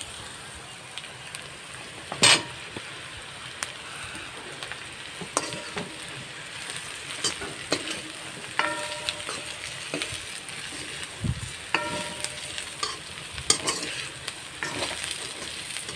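Boiled beef, onions and green chillies sizzling in hot oil in a wok, stirred with a steel spoon that scrapes and clicks against the pan. There is a loud clatter about two seconds in, and two short ringing knocks of the spoon on the wok later on.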